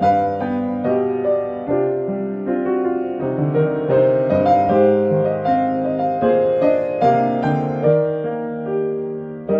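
Background piano music: a slow, steady run of notes over held chords.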